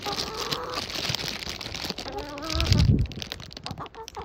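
Backyard hens making soft, wavering clucking calls, with a brief low thump about three seconds in and crackly rustling after it.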